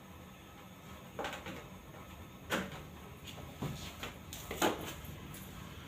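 Four or five light knocks and clacks, each about a second apart, from a long-handled floor-cleaning tool being handled and pushed against the floor.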